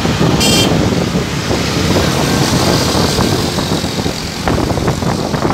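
Vehicle engine and road noise from riding in city traffic, with a brief high-pitched beep about half a second in.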